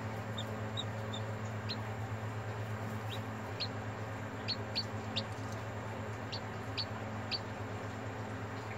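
A chick peeping from inside its pipped egg: about a dozen short, high peeps, each falling in pitch, scattered irregularly over a steady low hum.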